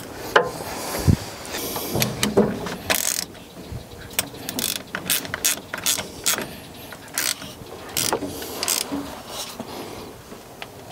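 Ratchet wrench clicking in short, irregular runs as a battery cable terminal is tightened to put power to the truck.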